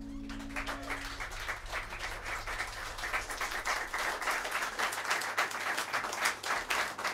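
Small studio audience applauding with dense, steady clapping. Under the first second, the trio's last held chord on the Hammond organ cuts off.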